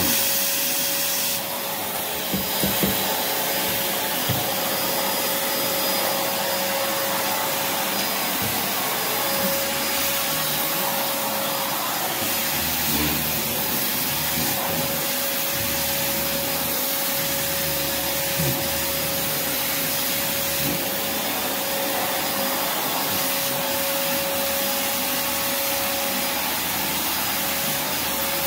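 Prolux X8 Elite backpack vacuum running steadily with a whine, its power brush worked over a sealed rubber-backed mat, with a few knocks about two to three seconds in. The head is sticking to the mat even with the suction relief valve wide open.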